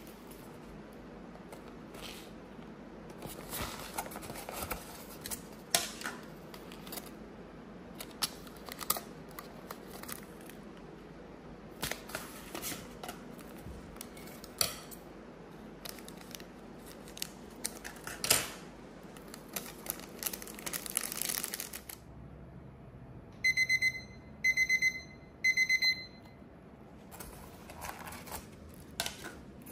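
Plastic food packaging rustling and crinkling as an instant noodle tray is unwrapped, its lid peeled and a seasoning packet handled. About two-thirds of the way in come three short runs of rapid, high electronic beeps from an appliance's beeper.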